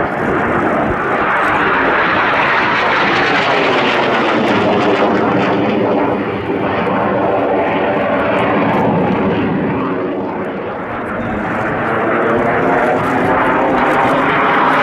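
Yakovlev Yak-130 jet trainer's twin turbofan engines heard from the ground in a flying display. The jet noise is loud and continuous, with a shifting, swirling tone as the jet manoeuvres overhead, and a brief dip about ten seconds in before it swells again.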